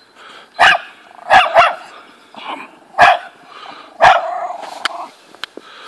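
A small dog barking at a snowman: about five sharp barks, two of them in quick succession, with the last drawing out into a longer sound.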